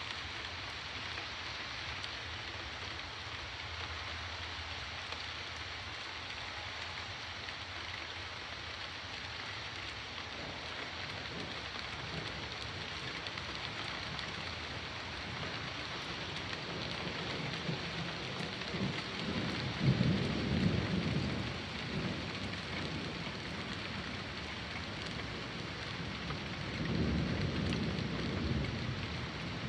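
Steady hiss of rain throughout, with thunder rumbling twice: a long roll that builds from about two-thirds of the way in and peaks sharply, then a second, shorter rumble near the end.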